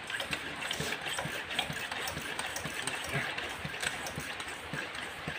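Floor-standing hand air pump worked in repeated strokes, charging the air chamber of a homemade PVC air rifle through a hose.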